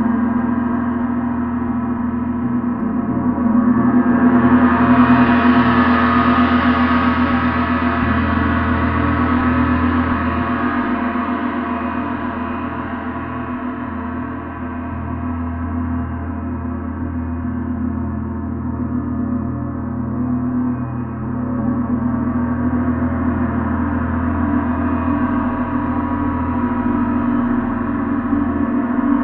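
Gong played continuously, a dense ringing wash of overtones over a steady low hum. The upper overtones swell about four seconds in, ease off over the next ten seconds, and build again near the end.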